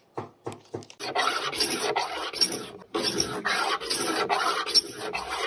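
Three short knocks, then about a second in, repeated rasping scraping strokes begin, roughly three a second, with a brief pause about halfway through.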